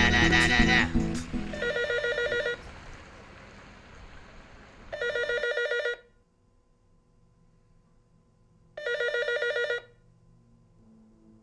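A telephone ringing: three rings, each about a second long with a fast trilling pulse, repeating roughly every three and a half seconds. Music is heard first and stops about a second in.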